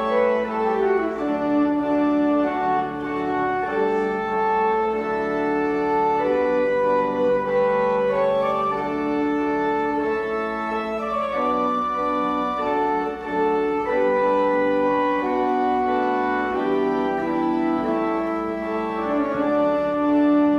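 Organ playing slow, sustained chords, each held for a second or two before moving to the next.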